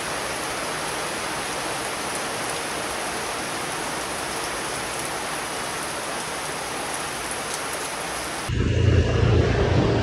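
Heavy rain falling steadily. About eight and a half seconds in it cuts off suddenly, replaced by louder road-traffic noise: a low engine hum with wind on the microphone.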